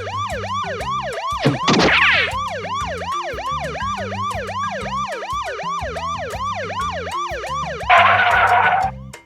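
Cartoon-style siren sound effect, a fast wail rising and falling about three times a second, over background music. A rising whoosh comes about two seconds in, and a loud hissing burst near the end.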